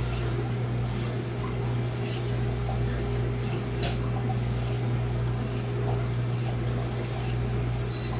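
Santoku knife blade in Blue #2 steel being stroked across a Naniwa Pro 1000 whetstone, a short scraping rasp about once a second, over a steady low hum.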